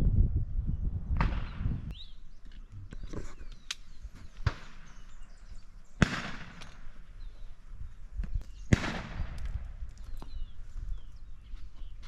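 Three distant shotgun shots, each a sharp crack with a short echo trailing off, about four and a half, six and nearly nine seconds in.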